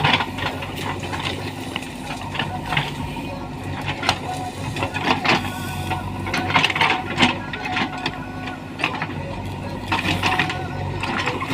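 Diesel engine of a JCB 3DX backhoe loader running steadily, with many short sharp cracks and knocks scattered over it, thickest around the middle and again near the end.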